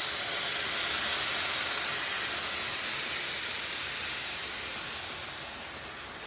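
Loud steady hissing sizzle as blended tomatoes are poured into a hot pan of frying boneless chicken pieces, easing off slightly near the end.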